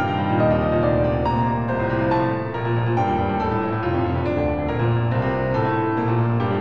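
Background music: a soft piano piece playing steadily.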